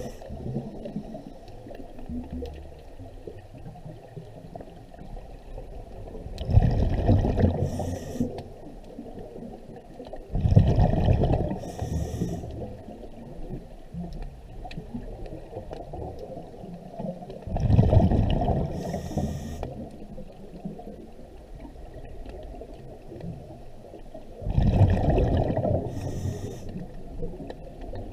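Scuba diver breathing through a regulator underwater: four loud rushes of exhaled bubbles about seven seconds apart, each ending in a short high hiss from the regulator, over a steady low underwater rumble.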